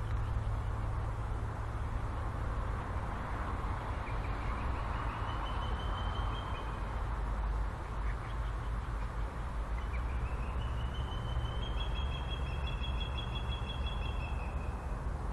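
BNSF diesel freight locomotive approaching with a steady low engine rumble. Two long high-pitched squealing tones sound over it, a shorter one about five seconds in and a longer one that rises in about ten seconds in and holds for several seconds.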